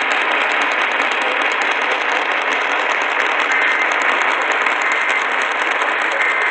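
Steady radio static hiss from a weather radio receiving a weak NOAA Weather Radio signal, with a few faint short tones in the second half.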